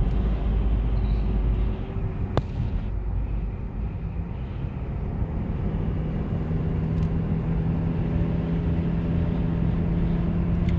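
Car driving on a paved road, heard from inside the cabin: a steady low rumble of engine and tyres. There is a sharp click about two seconds in, and a steady low hum comes up through the second half.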